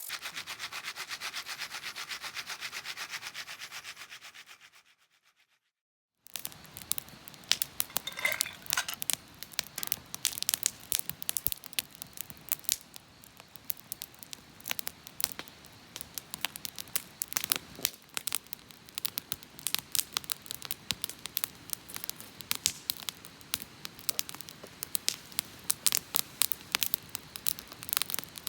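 Dense, fast sizzling that fades out over the first few seconds. After a brief silence, a wood campfire crackles with sharp, irregular pops over a low hiss.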